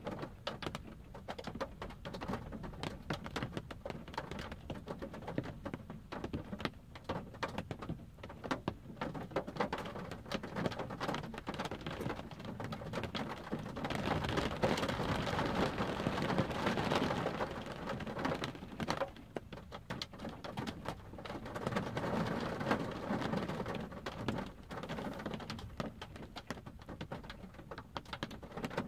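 Raindrops pattering on a car's windshield and roof, heard from inside the parked car, with a rumble of thunder swelling up for a few seconds around the middle and a smaller rumble a little later.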